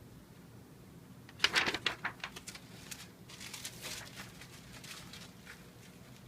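Manual typewriter clicking and clacking in a quick run about a second and a half in, followed by a rustling, sliding sound with a few lighter clicks lasting about a second and a half.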